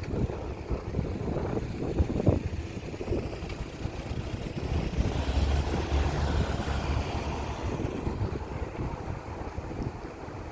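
Wind buffeting the microphone, a low rumbling hiss that is heaviest around the middle, with a few short knocks about two seconds in.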